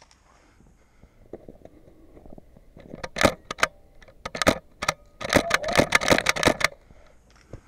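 Airsoft guns firing: a few sharp single shots about three to five seconds in, then a rapid string of shots lasting about a second and a half.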